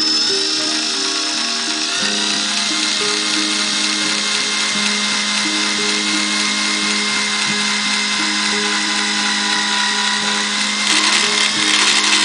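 Cordless drill running steadily as a thin bit bores a small hole through a narrow stick, getting louder for the last second or so. Background music plays underneath.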